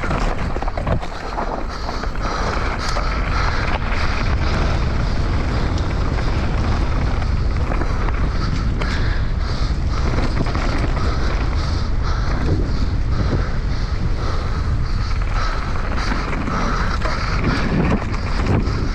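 Wind buffeting the onboard camera microphone of a mountain bike descending at speed, over steady tyre noise on a dirt trail, with frequent short clatters and knocks from the bike over rough ground.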